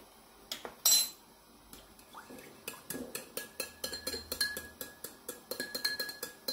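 A couple of sharp metal taps about a second in, then a steel fork stirring quickly in a small ceramic bowl, clinking against its sides several times a second with a light ring. It is the sound of orange food colouring being whisked into a bowl of liquid.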